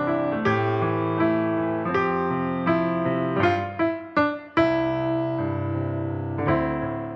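Background piano music: sustained chords with a slow run of single notes, fading out at the end.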